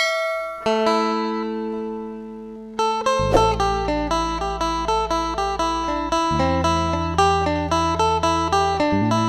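Instrumental background music on plucked strings: a chord rings out and fades, then about three seconds in a quicker plucked melody starts over a low bass line.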